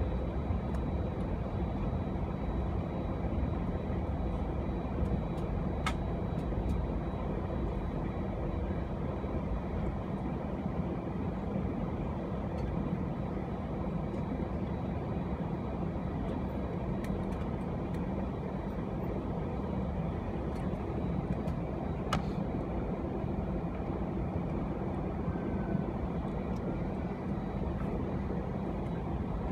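Cabin noise inside a taxiing Airbus A319: steady low rumble of the engines at idle and the rolling airframe, with two faint clicks.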